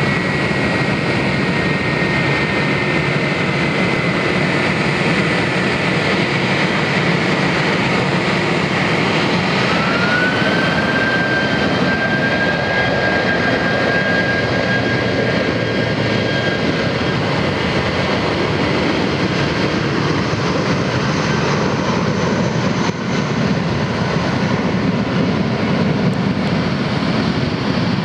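Airbus A319 jet airliner's twin turbofan engines at takeoff power: a steady loud jet roar with a whine that rises in pitch about ten seconds in and then holds steady, as the airliner spools up and accelerates on its takeoff roll.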